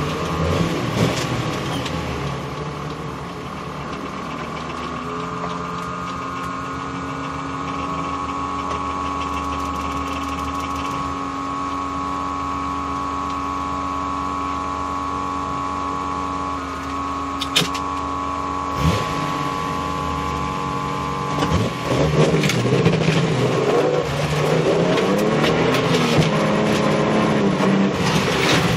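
Datsun 240Z's straight-six engine idling steadily for about twenty seconds, then revving hard as the car pulls away and accelerates, its pitch rising and falling with throttle and gear changes.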